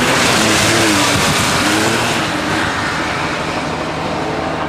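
Porsche 911 rally car's air-cooled flat-six passing close at speed, its engine revving up and down. The sound is loudest as the car goes by and then fades as it pulls away.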